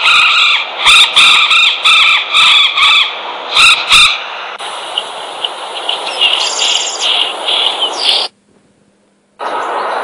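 Recorded wild-bird calls played back from a bird-sound app: a run of loud, repeated calls, about two a second, stopping about four seconds in. Then a different recording with steady background hiss and faint chirps, cut off suddenly about eight seconds in, followed by a second of silence and another recording starting near the end.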